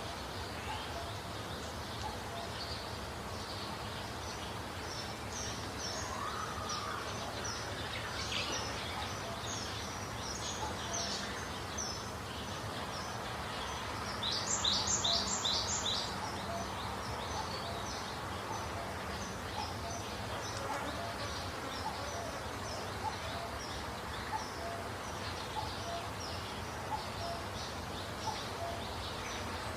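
Small birds chirping over a steady background hiss, with short high calls repeating throughout and a louder run of about four quick chirps about halfway through.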